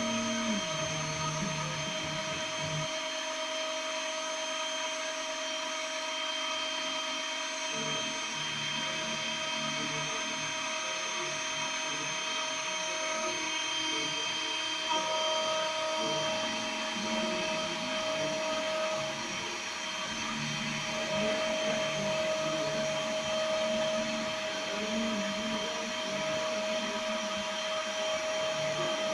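CNC router milling a circuit board: the spindle running with a steady whine, while lower stepper-motor tones change pitch and stop and start every second or so as the axes move.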